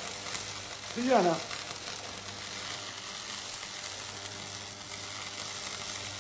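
Electric arc welding: a steady crackling sizzle of the welding arc, with a single short word called out about a second in.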